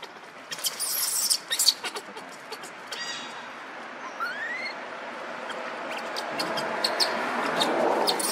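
Newborn baby macaque giving a short rising squeak about four seconds in, amid crackling and rustling of dry leaves as it moves on the leaf litter.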